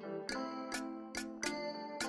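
Instrumental music of plucked guitar notes, a few separate plucks ringing out over sustained chords.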